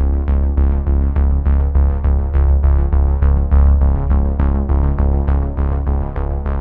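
Electronic background music: sustained synthesizer chords over a heavy bass, with notes struck in a steady pulse of roughly two to three a second.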